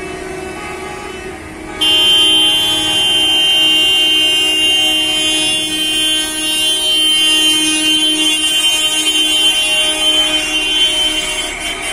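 Bus horns held down in a long continuous honk, several sounding together. A louder horn cuts in about two seconds in and sounds steadily until near the end. The honking is in protest.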